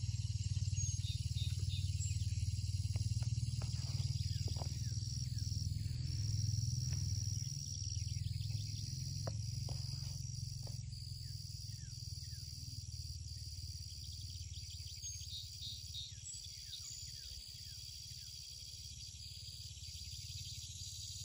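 Outdoor ambience: a steady low rumble, with insects droning high and in pulses and birds chirping now and then. A few sharp clicks come in the first half.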